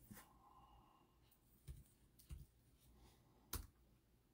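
Near silence with a few faint, short clicks and light knocks, the sharpest one a little before the end.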